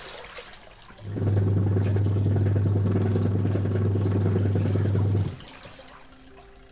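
A heavy factory machine running with a steady low hum. It starts abruptly about a second in and cuts off about four seconds later, leaving a quieter mechanical background, as if running in cycles.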